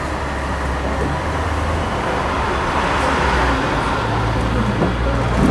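Hong Kong double-decker tram running along its street track, heard on board: a steady low motor hum under the noise of wheels on the rails and surrounding bus and car traffic, with a couple of short knocks near the end.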